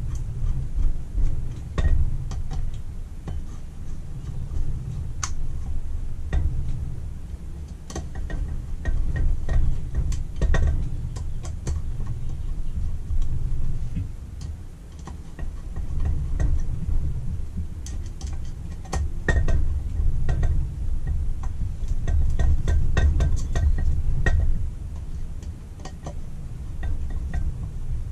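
Screwdriver turning the throttle base plate screws into a Holley 390 cfm carburettor body, giving small irregular metallic clicks and taps over a steady low rumble.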